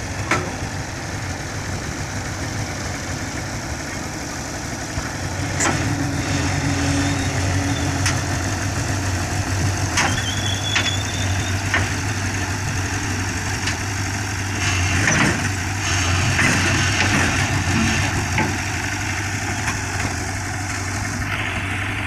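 Diesel engine of a JCB backhoe loader running steadily, getting louder about five seconds in as it works, with scattered metallic knocks and clanks.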